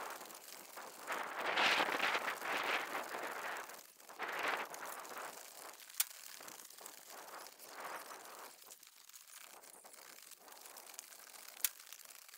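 Asphalt shingles being scraped and torn off a roof in rough bursts, with two single sharp knocks.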